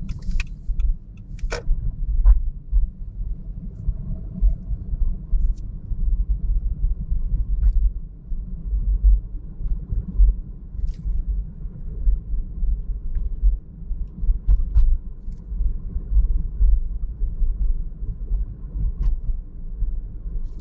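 Car driving along a city road: a continuous, unevenly fluctuating low rumble of road and engine noise, with a few faint clicks.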